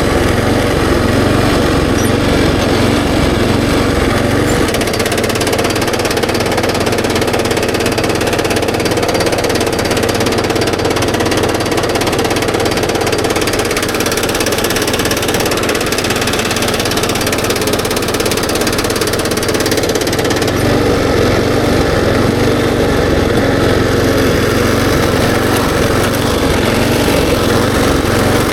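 Kubota SPJ400 rice transplanter's engine running steadily, with a rapid rhythmic clatter from the machine.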